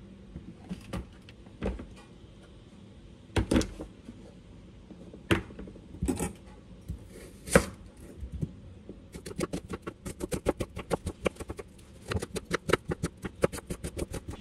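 Chef's knife cutting through vegetables onto a wooden cutting board. A few separate knocks come first, then from about nine seconds in a fast, even run of chopping strokes, about six a second, as an onion is diced.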